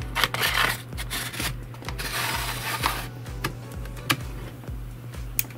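Aluminium laptop hard-drive caddy scraping as it is pushed into the optical drive bay in three strokes, the longest near the middle. A few sharp clicks follow as it seats and its front bezel snaps into place.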